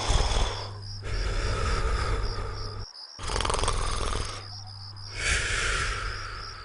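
Cartoon character snoring: a series of loud, rattling snores, each a second or two long, with short breaks between breaths.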